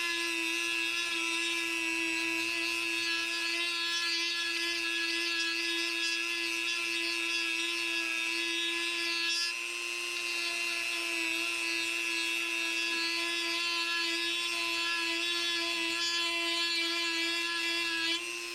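A handheld power tool's motor running with a steady high-pitched whine at an even speed, used to trim back the plastic body-kit moulding. Its tone shifts slightly about halfway through, and it eases off near the end.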